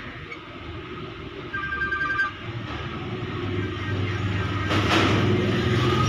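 Nokia TA-1114 feature phone's speaker previewing its ringtones as the ringing-tone list is scrolled: a quick run of short repeated beeps about a second and a half in, then a louder sound swelling over a rising low rumble toward the end.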